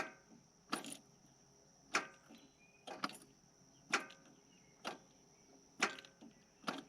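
Yanmar EX3200 compact tractor's starting circuit clicking about once a second as the start button is pressed over and over, with the engine not cranking. The click shows that a safety switch is passing current, yet the tractor still won't start.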